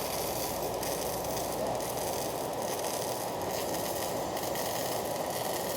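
Welding arc crackling and sizzling steadily without a break.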